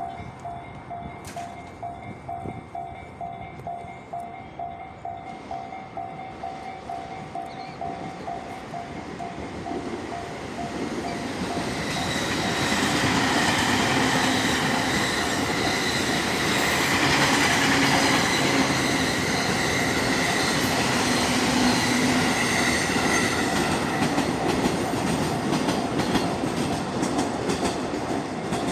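Japanese level-crossing alarm bell ringing in a steady repeating rhythm, then a train running through the crossing. The train builds up about ten seconds in and its rail noise stays loud to the end, almost covering the bell.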